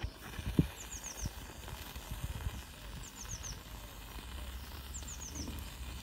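A small bird singing a short phrase of three or four quick, high, falling notes, repeated about every two seconds, over a steady low rumble. A single sharp knock about half a second in.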